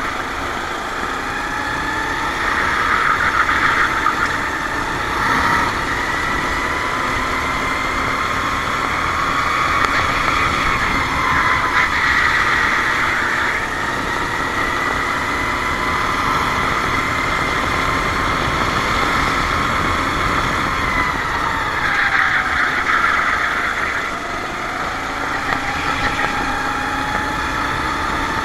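Racing kart engine running at speed on track, its pitch climbing slowly and dropping twice as the kart brakes and accelerates through the lap.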